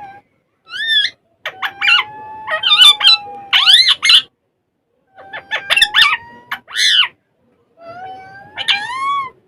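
Ringneck parrots calling in four bouts of rising, screechy calls mixed with sharp clicks, one bout holding a steady note for about two seconds.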